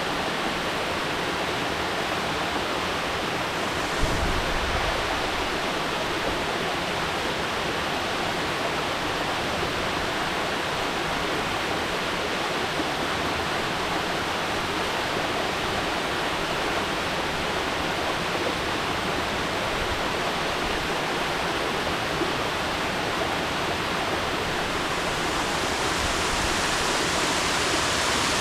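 Mountain waterfall: water falling and splashing in a steady, even rush. There is a brief low thump about four seconds in.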